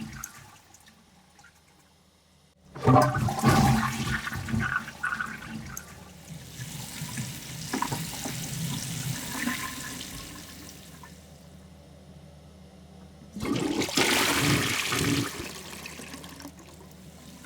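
Toilet flushing: the tail of one flush fades out, then a flush starts abruptly about three seconds in and drains away over several seconds. Another sudden rush of water comes near the end and fades.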